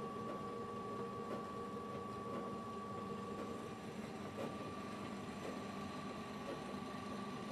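Hata Iron Works HT-AP15SS-U 15-station rotary tablet press running: a steady machine hum with a constant high whine and faint scattered clicks.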